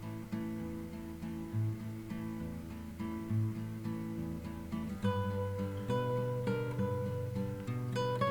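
Background music: acoustic guitar strumming steady chords, growing fuller and brighter about five seconds in.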